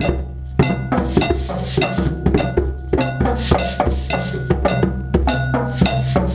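Student drum circle playing a fast, dense rhythm of hand-drum strikes, with a cowbell and wood block ringing through it.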